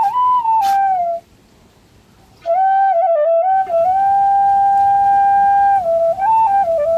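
Background flute music: a slow solo melody of long held notes and small ornamented turns. It breaks off for about a second before resuming.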